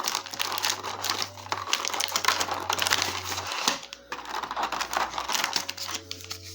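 Wrapped trading-card booster packs crinkling and rustling as they are handled and sorted, with a short lull about two thirds of the way through.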